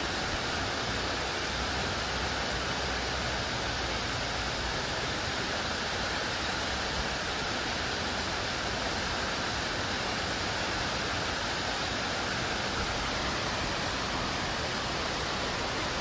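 Steady sound of a stream's running water, an even hiss with no breaks.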